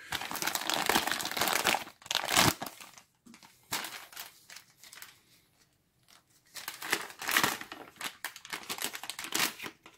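Paper drink-mix pouch crinkling and rustling as hands work it open, in two spells with a quiet pause in the middle.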